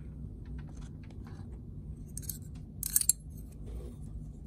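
Stonewashed titanium knife scales being handled: small scattered clicks and light clinks, with a couple of sharp metallic clinks about three seconds in.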